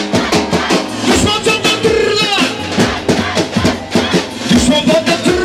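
Loud dance music with a steady drum beat and a wavering melody over it.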